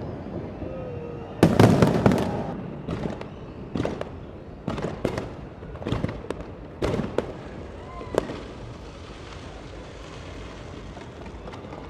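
Aerial fireworks bursting: a loud cluster of bangs about a second and a half in, then a run of separate sharp cracks roughly once a second, stopping about eight seconds in and leaving a steady background hubbub.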